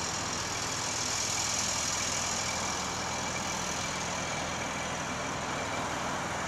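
Steady background noise: an even hiss with a faint low hum, no distinct events.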